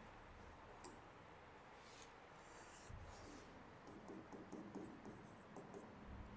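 Near silence: room tone with faint scattered scratches and small clicks.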